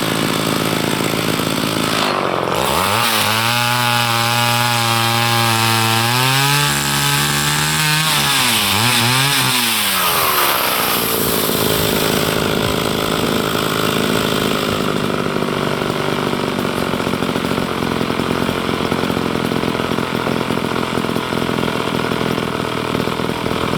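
Gasoline chainsaw running and cutting wood. About three seconds in its engine pitch climbs and holds, wavers up and down around nine to ten seconds, then it runs on steadily.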